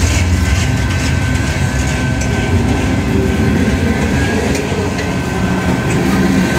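Loaded coil-steel flatcars of a long freight train rolling past at close range: a steady low rumble of steel wheels on rail, with a thin, steady high tone above it.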